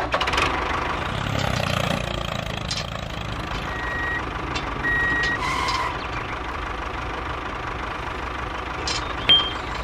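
Tractor engine running steadily, with two short reversing beeps about four and five seconds in as the tractor backs up to the trailer.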